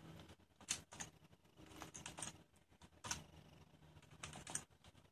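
Faint, irregular keystrokes on a computer keyboard as a password is typed in.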